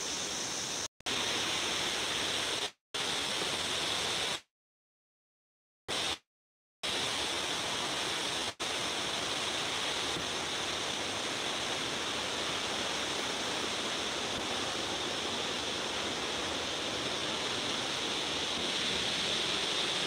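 Steady rushing of falling water from Shiraito Falls. The sound cuts out to silence several times in the first nine seconds, once for about a second and a half, then runs unbroken.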